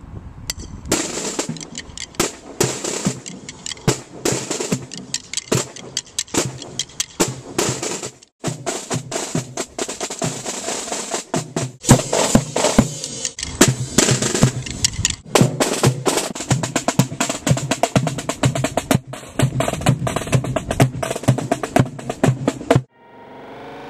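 A cadet band's drums and a cymbal playing a fast marching rhythm, with drum rolls and a cymbal struck with a soft mallet. The playing drops out briefly about eight seconds in and stops abruptly near the end.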